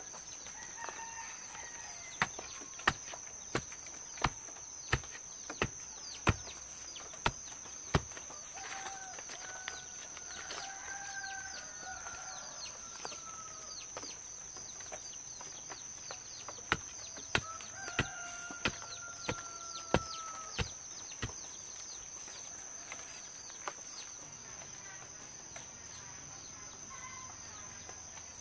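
Rooster crowing twice, in long drawn-out crows. Two runs of sharp, evenly spaced knocks, about three every two seconds, come before and during the second crow. A steady high whine runs underneath.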